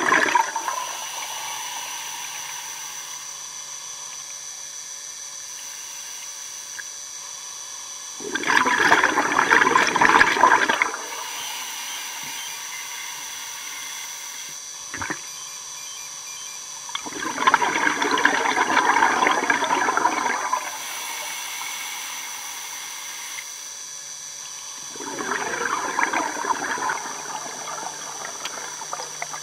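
Scuba regulator exhalation heard underwater: bubbles rush out in bursts of two to three seconds, about eight seconds apart, three times. A steady faint high whine runs between the bursts, with a single short click about halfway through.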